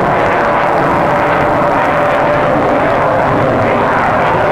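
Avro Vulcan XH558's four Rolls-Royce Olympus jet engines running loud overhead: a steady rushing noise with a held whine through it.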